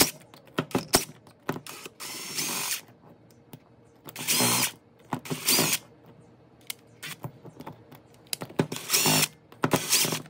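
DeWalt 20V cordless driver spinning a hex bit in short runs, about five of them, to back out the cylinder head screws of a Traxxas TRX 2.5 nitro engine. Sharp clicks from the bit and screws come between the runs, most of them in the first second.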